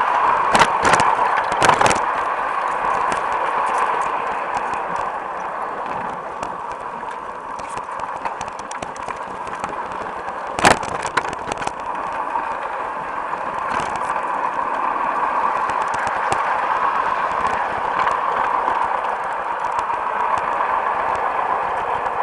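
LGB garden-scale model train running along its track, heard from a camera riding on it: a steady whirring from the running gear, with scattered clicks of the wheels over rail joints, a few close together at the start and one sharp click about ten seconds in.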